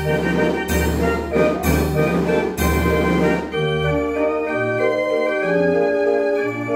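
Dutch street organ (draaiorgel) playing a tune: held pipe notes over a bass line, with regular drum beats that stop about halfway through, leaving only the pipes.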